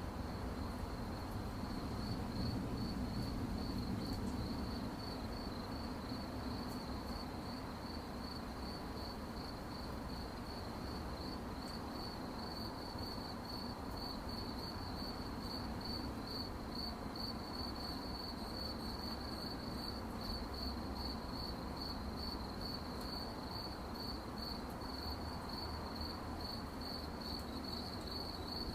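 Crickets chirping: a steady high-pitched chirp repeating in even pulses, over a low steady rumble.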